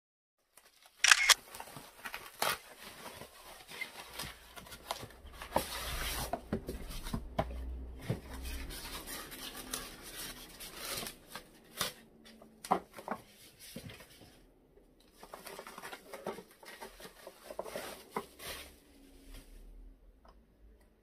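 Foam and bubble-wrap packaging handled and pulled open to unbox a round mirror tray: irregular rustling and crackling with scattered sharp knocks and taps, starting about a second in.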